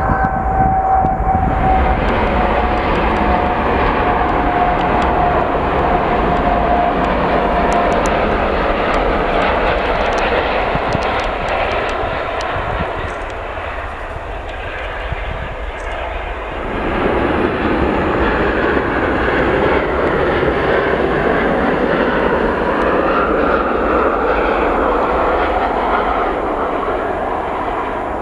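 Jet airliner turbofan engines at takeoff power: a loud, steady rush of jet noise with a high whine that falls slowly in pitch over the first several seconds. The sound dips and then swells again about two-thirds of the way through.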